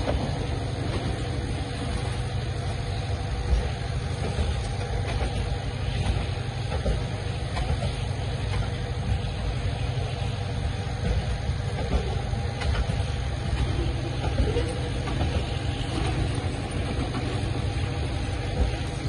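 Loaded open coal wagons of a freight train rolling slowly past, a steady low rumble with scattered clicks and knocks from wheels and couplings and a faint steady hum. The train moves under push from a banker diesel locomotive at the rear, its lead locomotive shut down by a failure.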